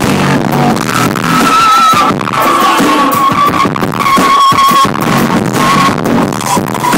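Loud live drum-and-bass rock music heard through a poor, distorted audience recording, with a high melody line of long held notes.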